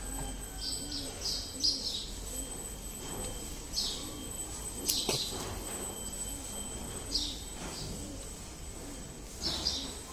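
Small birds chirping: short, high chirps come a handful of times at uneven gaps.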